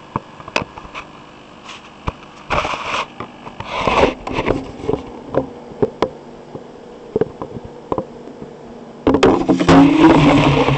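Handling noise picked up by a keychain video camera's own microphone inside a plastic caulking-tube shell: scattered clicks, knocks and two short scrapes as the tube is moved into the air cannon's plastic barrel. About nine seconds in, a loud continuous noise starts suddenly.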